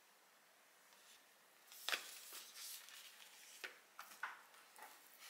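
Block of raw pork being lifted from its meat tray and set down on a plastic cutting board: a sharp knock about two seconds in, then handling noises and a few light clicks.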